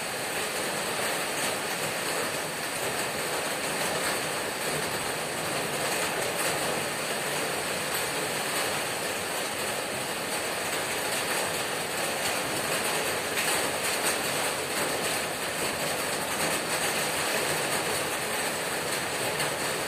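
Heavy rain hammering on a corrugated tin roof: a dense, steady clatter of countless drops striking the metal sheets.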